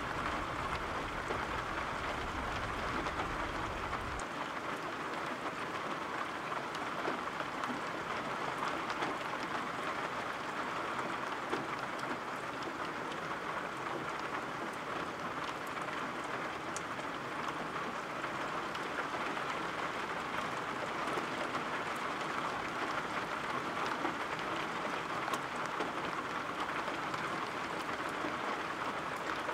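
Steady rain falling, an even dense patter with scattered small drop ticks. A deep low rumble underneath stops suddenly about four seconds in.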